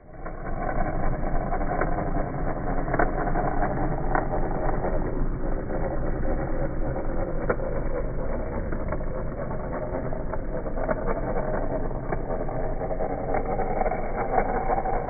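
Electric drive motor and gearbox of a 1:18 scale multi-axle RC truck chassis running steadily as the model drives over rough concrete, with scattered small clicks.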